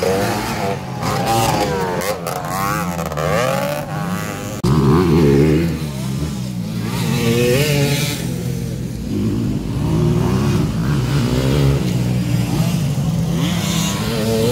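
Motocross dirt bikes racing, their engines revving up and down over and over, with a louder surge about four and a half seconds in.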